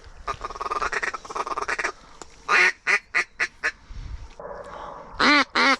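Mallard duck call blown by a hunter: a fast chattering feed call, then a string of loud, evenly paced hen quacks, and two more loud quacks near the end, sounded to bring passing ducks in to the decoys.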